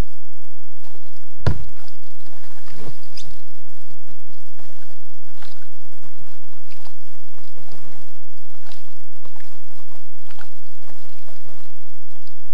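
A single thunk about a second and a half in, like a paddle knocking against a sit-on-top kayak, then faint scattered clicks and patters of paddling.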